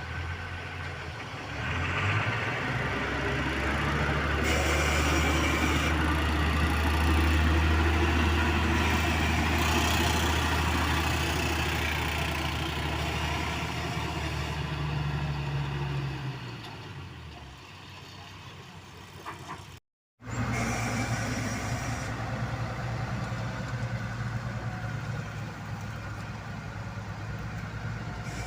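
Diesel engines of road-paving machinery running. The engine note comes up about two seconds in, holds steady, then fades away; after a short dropout another engine runs steadily.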